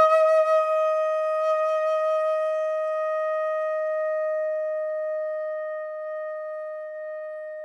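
Solo silver concert flute holding one long, steady note, with no other instruments. It starts cleanly out of silence just before, then slowly fades in a gradual diminuendo.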